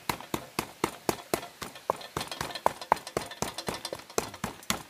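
Rapid, even knocking or tapping, about four sharp knocks a second.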